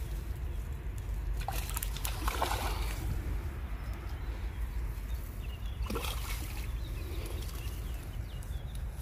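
Water splashing and sloshing among reeds at the shoreline: one burst of splashing about one and a half seconds in, and a shorter one about six seconds in, over a low steady rumble.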